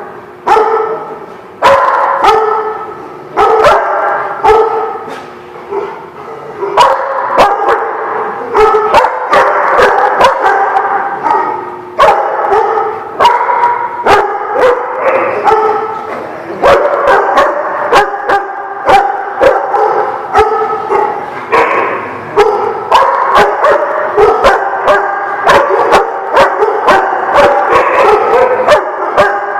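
Several dogs barking and yipping together without letup, their barks overlapping into a continuous loud chorus.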